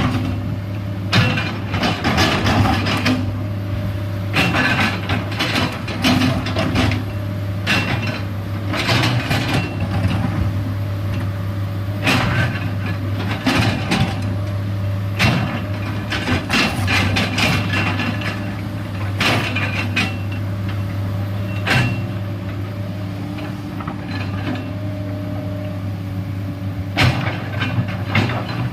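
A Komatsu PC210LC excavator's diesel engine runs steadily under load while the machine works earth and rock, with irregular clanks and scrapes every second or two.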